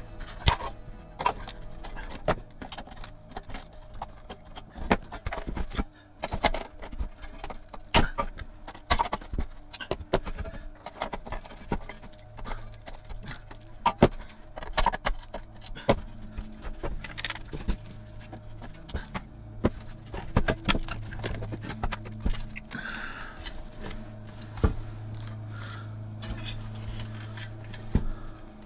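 Parts of a vintage Tonka toy dump truck being handled and pulled apart by hand: irregular clanks, clicks and scrapes of the metal pieces against each other and the table, over background music.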